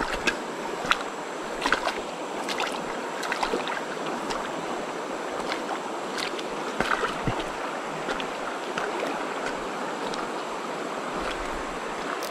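Shallow river rapids running over rocks: a steady rushing of water, with a few scattered sharp clicks.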